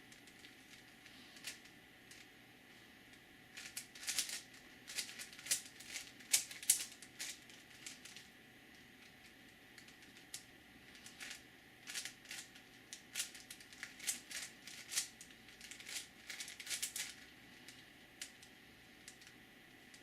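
5x5x5 Rubik's cube being turned by hand, its plastic layers clicking and clacking in quick runs. There are two spells of rapid clicks, a few seconds each, with a pause between them.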